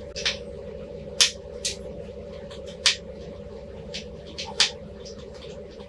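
Metal multimeter probe tips tapping and scraping on the pins and contacts of a camera's flex cable and chip: about half a dozen short, sharp, irregular ticks over a steady low hum.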